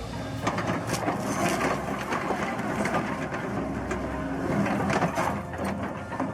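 Wood cracking and splintering in many irregular snaps as an excavator-mounted stump auger grinds through a tree stump, over a low machine hum.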